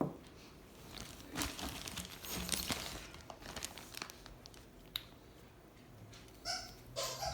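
Crinkling and rustling of a bag as a hand rummages through it for the next old padlock, with a single sharp click about five seconds in.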